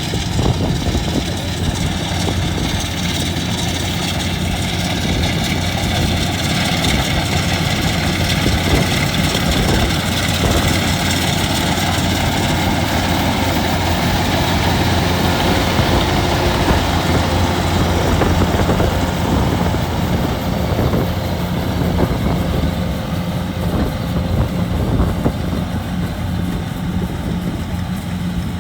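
Rice combine harvester's engine running steadily, a constant loud drone with a deep hum.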